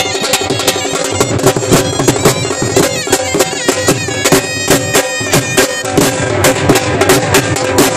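Two dhol drums beating a fast, driving rhythm, with a piercing wind instrument playing a melody over steady held tones.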